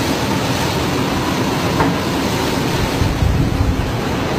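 Storm wind and heavy seas making a steady roar with a deep low rumble, with wind buffeting the microphone.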